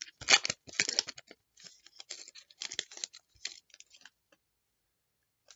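Foil trading-card pack wrapper crinkling and tearing as a stubborn pack is worked open, loudest in the first second or so, then thinning to scattered faint crackles and clicks that stop a little after four seconds in.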